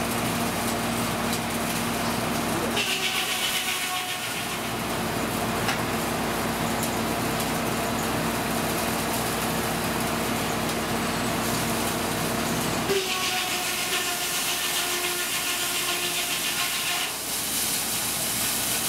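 Old sawmill running steadily while its saw cuts a log on the carriage. The higher, harsher cutting noise comes in about 3 s in and again about 13 s in, over the steady run of the mill machinery.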